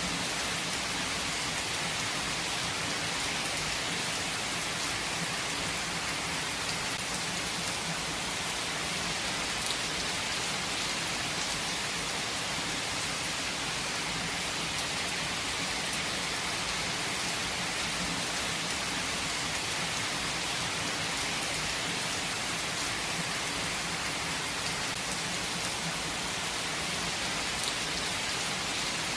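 Steady, even rain falling, with a few faint drop ticks in it.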